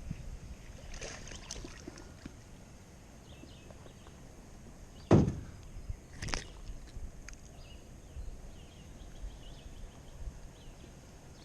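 Knocks and handling noise in a small fishing boat, with one loud thump about five seconds in and a sharper knock or splash about a second later.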